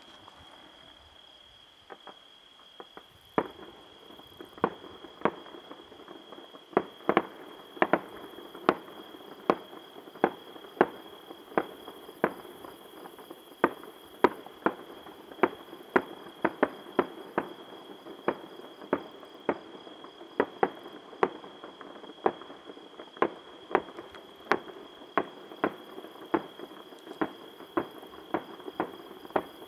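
Distant fireworks going off as a string of sharp bangs, one to two a second, starting about three seconds in. A steady high trill of crickets runs underneath.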